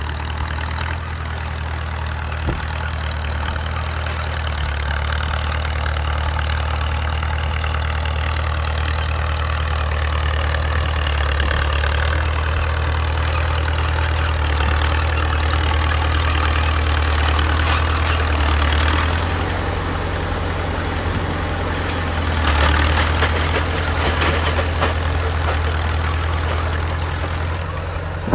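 Engine of a restored 1947 bulldozer running steadily, its note shifting about two-thirds of the way through and briefly growing louder soon after.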